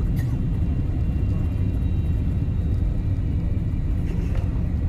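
Passenger airliner cabin noise during the landing: a steady low rumble with a faint high whine above it.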